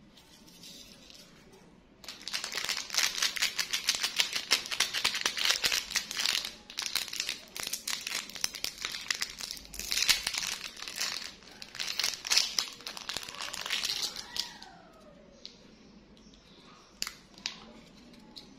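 Clear plastic candy wrapper crinkling and tearing as it is pulled open by hand. The crinkling starts about two seconds in and stops about four seconds before the end.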